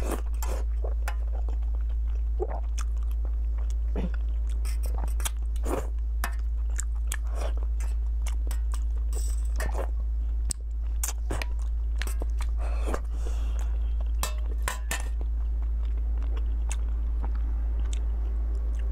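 Close-miked eating: chewing and biting with many short, sharp crunchy clicks, over a steady low hum.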